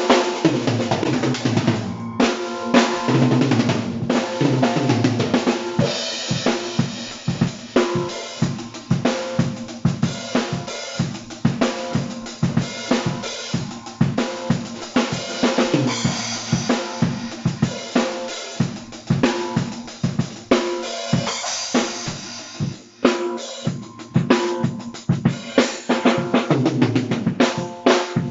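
Tama Imperialstar drum kit being played, with fast, steady strikes on the bass drum, snare and toms under crashing cymbals.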